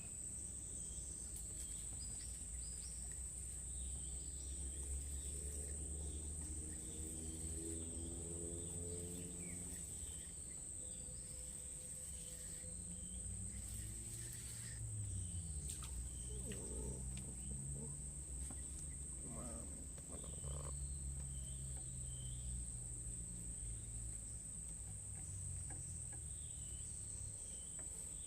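Insects droning with a steady high-pitched buzz. Underneath runs a low hum that shifts in pitch partway through.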